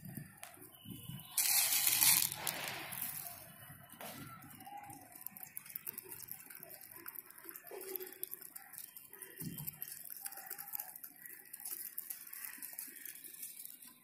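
A loud rush of noise starts about a second in and fades over about two seconds. After it come faint, scattered taps of pigeons pecking grain off a concrete floor.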